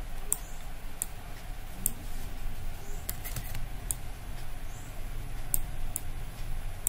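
Computer mouse clicks: scattered single clicks about a second apart, with a quick run of three about three seconds in, over a faint low hum.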